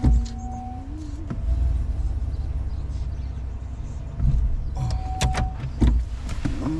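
Low rumble of a vehicle running. In the first second and a half a short motor whine rises slightly in pitch and then cuts off, and a few sharp clicks and knocks follow about five to six seconds in.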